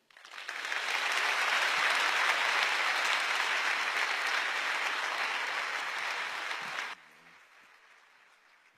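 Large audience applauding, building up over the first second, holding steady, then cutting off suddenly about seven seconds in to a faint fading tail.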